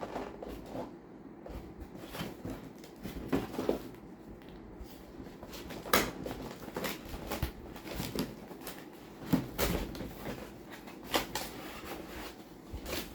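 Packaging being opened and handled by hand: irregular knocks, taps and clicks of a box and its paper and bag wrapping, a dozen or so scattered through the stretch.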